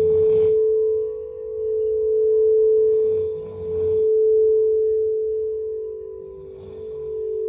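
Singing bowl ringing on one steady tone that swells and fades every couple of seconds. Three breathy snores come about three seconds apart, near the start, in the middle and near the end.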